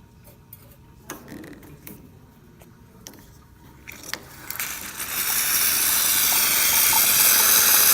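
A few light clicks and knocks, then about four seconds in the hot water valve of an Alex espresso machine opens and hot water rushes and hisses steadily out of the wand.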